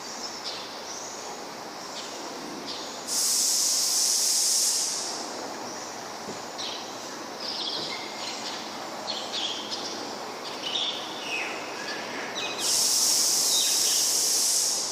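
Two loud bursts of high hissing, each about two seconds long: the first starts sharply about three seconds in and tails off, the second comes near the end. Short bird chirps are scattered over a steady background hiss.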